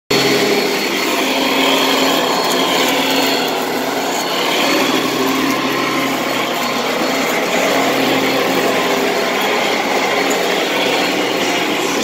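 Vacuum cleaner running loudly and steadily, a motor hum under a wide rush of air, as it sucks dead cockroaches off carpet.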